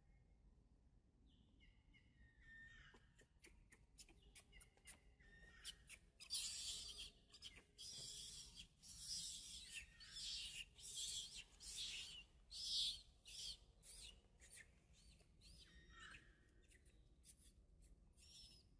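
Infant macaque in distress: thin, high whimpering calls, then from about six seconds in a run of shrill screams, several a second for about seven seconds, falling back to short whimpers near the end. The screams come as its mother pulls it along the ground by the arm.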